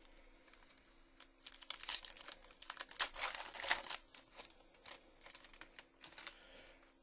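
Foil trading-card pack wrapper crinkling as it is handled and torn open: a dense, irregular crackling, loudest from about a second and a half to four seconds in.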